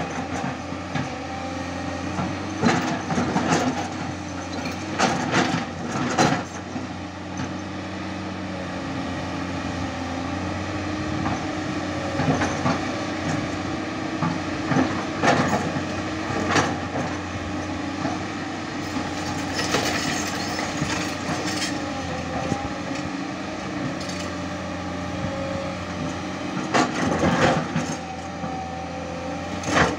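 Tata Hitachi 200 Super Plus hydraulic excavator's diesel engine running steadily under digging load, with sharp clanks and scrapes of the steel bucket against rock every few seconds.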